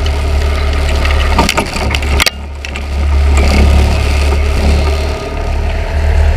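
Fishing boat's engine running under way while trolling, with rushing water and a loud, steady low rumble. Two sharp knocks come about a second and a half and a little over two seconds in.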